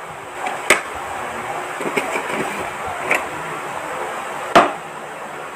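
Dishes and food being handled at a meal: a glass bowl and plate knocking, giving four short sharp clicks, the loudest about three quarters of a second in and just before the end, over steady background noise.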